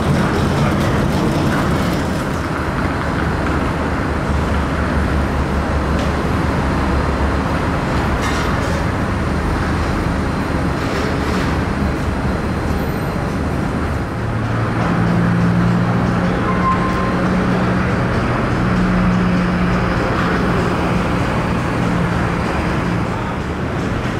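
De-icing truck running and spraying de-icing fluid onto an airliner: a steady engine and spray noise, joined about halfway through by a low, steady hum.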